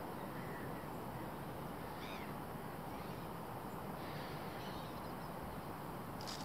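Steady, low outdoor background hiss with a faint bird call about two seconds in.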